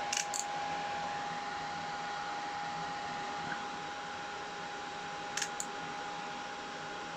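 Small fume extractor fan running steadily: a hiss of moving air with a steady whine. Two pairs of light clicks, one just after the start and one about five seconds in.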